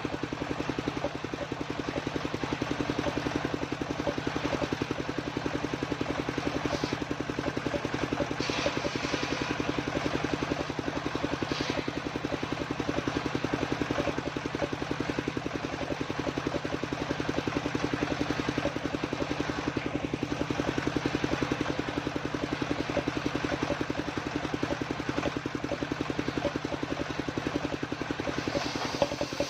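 The engine driving a home-built circular saw rig, running steadily with an even, fast firing pulse. A few faint short scraping sounds come about a third of the way in.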